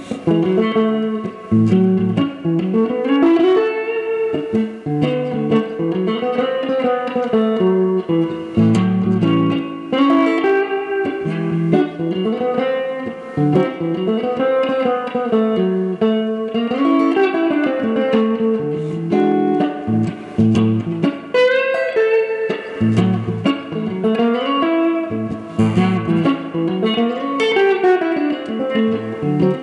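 Red Stratocaster-style electric guitar playing a bop-flavoured blues solo in F sharp minor (A major), single-note lines with bent notes sliding up and down, over low sustained bass notes.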